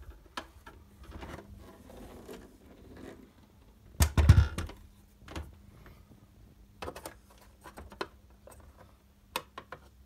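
Handling noise from the Sharp GF-7500Z boombox's plastic case: scattered clicks and knocks, with one loud thump about four seconds in as the set is turned round. A quick run of clicks near the end as the battery compartment cover is opened.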